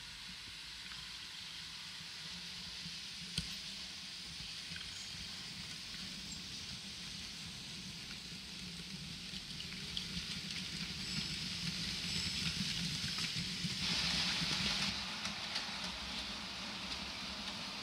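Model railway train running on the track: a diesel locomotive model hauling a train of flatcars, its wheels rolling over the rails with a steady rushing hiss and rumble. It grows louder over the first dozen seconds, with a single click about three seconds in and a brief louder hiss about fourteen seconds in.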